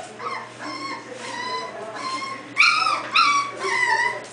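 Young puppies, about four weeks old, whimpering and yipping in a rapid string of short, high whines, loudest a little past halfway.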